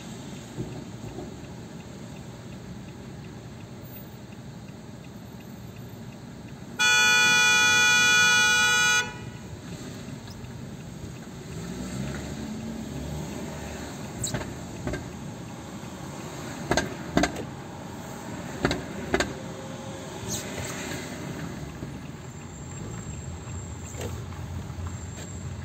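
A car horn sounds loudly as one steady note held for about two seconds, over a steady hum of city traffic and road noise. A few sharp clicks come later.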